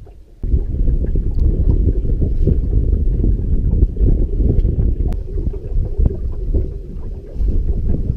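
Wind buffeting the microphone: a loud, uneven low rumble that starts abruptly about half a second in and carries on throughout.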